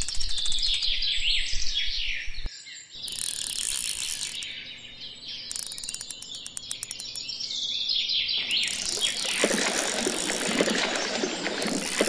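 Several songbirds chirping and singing together, with rapid trills. The sound drops out abruptly for a moment about two and a half seconds in. From about eight seconds in, a denser, louder chorus of birds takes over.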